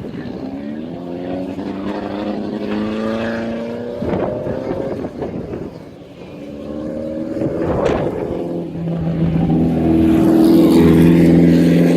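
Off-road race car's engine heard onboard, revving up in pitch, dropping about four seconds in as it shifts, climbing again, then holding a steady, louder note. A sharp bang comes about eight seconds in as the car jolts over rough ground.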